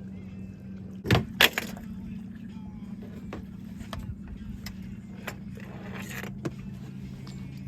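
A steady low mechanical hum on a fishing boat, with two sharp knocks just after a second in and lighter clicks and rattles of gear through the rest.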